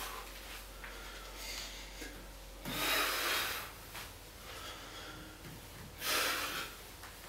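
A man's forceful breaths out, two loud blows about three seconds apart, one with each chin-up, with quieter breathing between.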